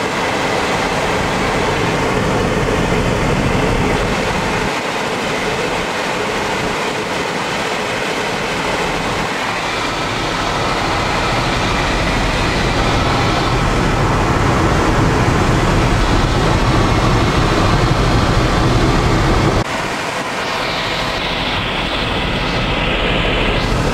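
Helicopter engine and rotor noise heard from inside the cabin in flight, loud and steady. The low rumble drops for a moment about twenty seconds in.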